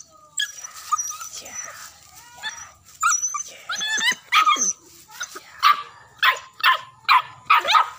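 A young hunting dog in training whining in high, wavering cries, then yelping in short, sharp barks about twice a second over the last few seconds.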